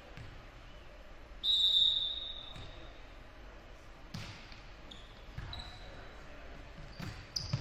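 A referee's whistle blows once about a second and a half in, signalling the serve. A volleyball is then struck about four seconds in, with more ball contacts near the end, and sneakers squeak briefly on the hardwood gym floor in between.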